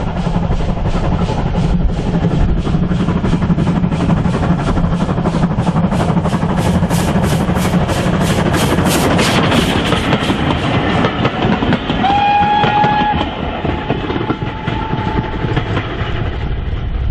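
GWR 57xx-class pannier tank steam locomotive 5764 working hard with a train, its exhaust beating at about three beats a second and growing louder as it comes close, then giving way to the rumble and clatter of the carriages rolling past. A brief steady high tone sounds about twelve seconds in, with a fainter one shortly after.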